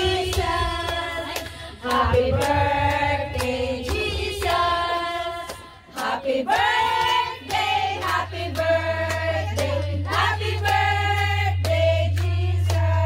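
Several voices singing a song together in sung phrases with short breaks. A steady low drone comes in about halfway through and holds under the singing.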